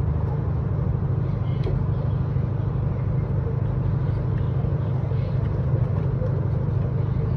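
Steady low rumble with a faint even hum running through it, unchanging in level.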